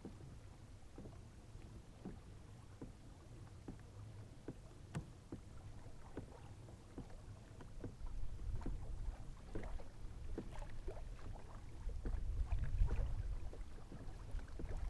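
Kayak on the water: small irregular ticks and knocks against the hull, about two a second. A low wind rumble on the microphone grows louder after about 8 seconds.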